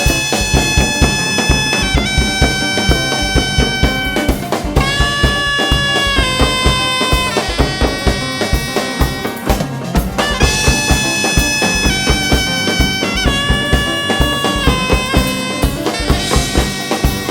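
Korean traditional music ensemble performing live: a loud reed-like wind instrument plays long held notes that bend in pitch, over a steady drum beat.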